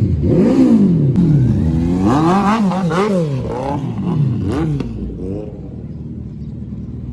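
Superbike engines revving in quick throttle blips, their pitch swooping up and falling back again and again, several overlapping at once. After about five seconds the blips stop and the engines drop to a lower steady run.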